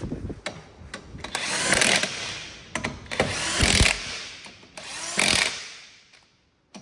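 A 1/2-inch impact wrench with a 17 mm socket runs the wheel's lug nuts down in three short hammering bursts, each lasting under a second and stopping abruptly. The nuts are seated without being run crazy tight.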